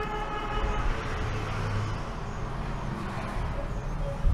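Road traffic noise, with a vehicle horn sounding one steady note for about the first second, and a low thump near the end.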